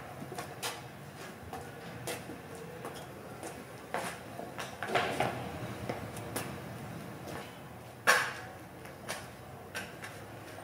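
Footsteps on a concrete floor heard as scattered irregular clicks and knocks, with one louder, sharper knock about eight seconds in.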